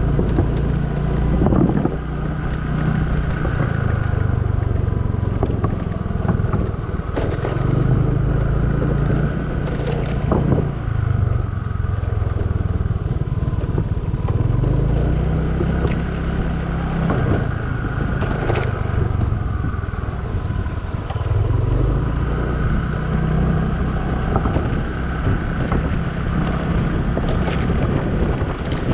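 Motor scooter engine running at low road speed, its pitch rising and falling every few seconds with the throttle, with occasional knocks.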